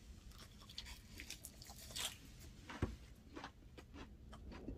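Faint crunching and chewing of a wrap of dried laver (gim) and kelp with gwamegi being eaten. It is a scattered series of soft crackles, with one sharper knock a little past halfway.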